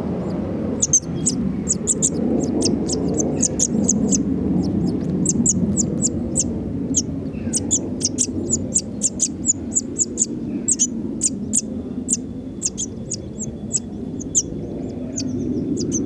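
Common linnet nestlings begging: a rapid run of thin, high-pitched cheeps, several a second, over a steady low rumble.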